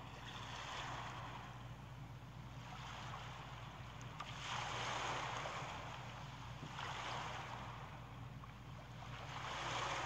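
Ocean surf: waves washing in and drawing back, each swell of hiss rising and fading over a second or two, four times.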